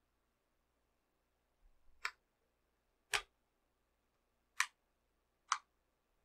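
Four short, sharp clicks, irregularly spaced about a second apart, over otherwise quiet room tone.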